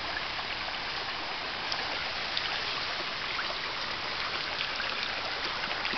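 Shallow stream water running steadily, an even rush of water with a few faint small ticks.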